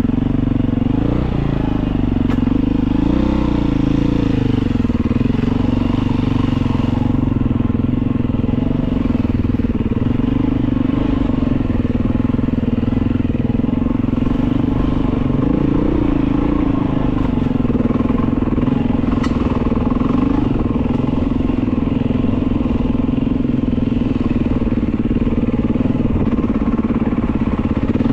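Beta 500 dirt bike's single-cylinder four-stroke engine running under way, its pitch rising and falling a little with the throttle.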